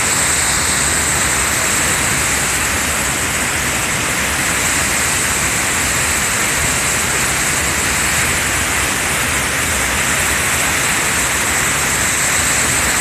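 Triberg waterfall rushing: the steady, loud, even noise of falling water.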